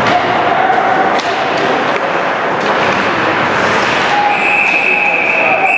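Ice hockey rink noise during play: a dense wash of crowd and rink sound with sharp knocks of puck and sticks against the ice and boards. A steady high tone starts about four seconds in.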